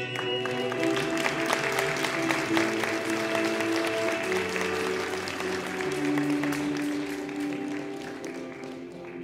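Audience applauding over music with long held notes; the clapping dies away near the end.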